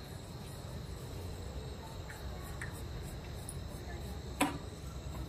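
Straight razor scraping hair off a scalp, faint, over a steady high-pitched drone of crickets; one sharp click about four and a half seconds in.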